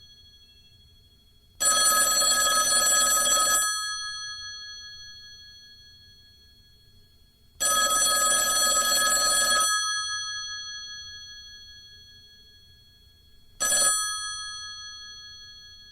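Old telephone's bell ringing: two rings of about two seconds each, six seconds apart, then a brief third ring near the end. After each ring the bell tones linger and fade away.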